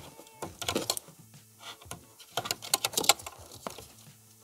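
Plastic wiring-harness connectors being worked loose and unplugged from a car's parking distance control (PDC) module: a string of small, irregular plastic clicks and rattles.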